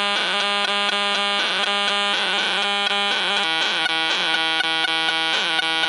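Small Casio mini keyboard played through a circuit-bent filter box, its tone crunched up into a harsh, buzzing distortion. A held drone runs under a repeating pattern of notes, and the sound changes about three and a half seconds in.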